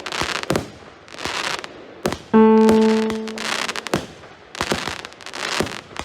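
A 200-shot, 0.8-inch consumer fireworks cake firing a rapid string of shots, with hissing launches, crackling bursts and sharp pops. Background music plays underneath, with a single held keyboard-like note struck about two and a third seconds in.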